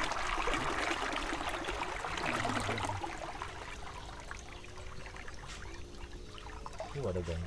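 Water trickling and splashing along the hull of a small river boat as it glides slowly, fading over the first few seconds; a faint steady hum runs underneath in the second half.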